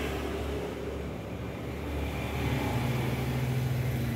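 Steady low engine-like drone that steps up in pitch a little over two seconds in, heard as the toy vehicles are pushed across a wooden table.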